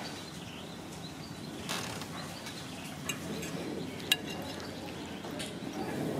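Metal fork clinking against a plate a few times, the sharpest clink about four seconds in, over a steady low background murmur.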